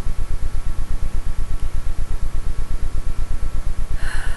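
A steady low pulsing hum, throbbing about ten times a second, with a faint steady whine above it. A short hiss comes near the end.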